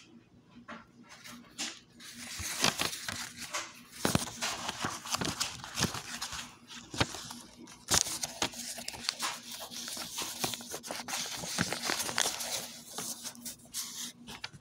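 Handling noise: paperback pages rustling as the book is leafed through, with scattered sharp clicks and knocks. It starts about two seconds in and dies down near the end.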